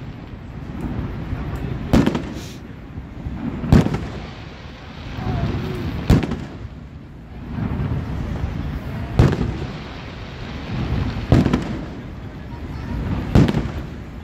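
Aerial fireworks shells bursting: six sharp bangs about two seconds apart, each followed by a low rumble that lingers until the next.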